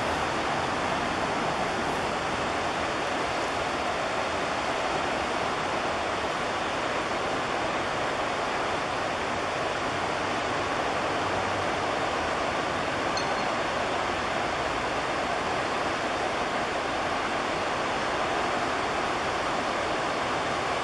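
Shallow rocky river rushing over stones and rapids: a steady, unbroken rush of water.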